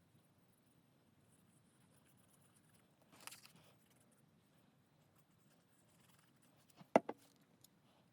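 Quiet handling of paper craft pieces: a brief paper rustle about three seconds in, and a single sharp knock on the work surface near the end.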